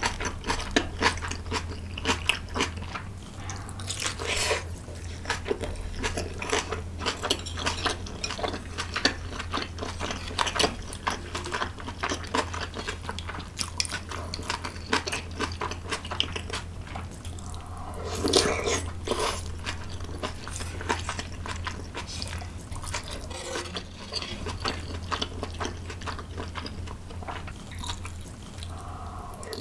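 Close-miked chewing and crunching of food in the mouth: many rapid, crisp crunches, as in a mukbang eating sound, over a low steady hum.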